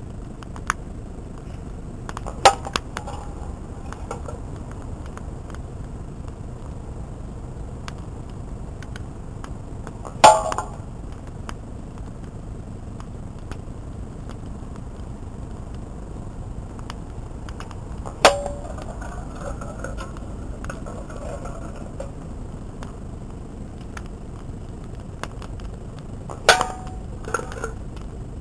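Air-rifle pellets striking aluminium beer cans, four sharp metallic hits about eight seconds apart, each with a short ring. After the later hits come a few smaller clatters as the struck cans tip over.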